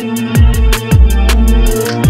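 Background music with a steady drum beat and deep bass notes that slide down in pitch several times.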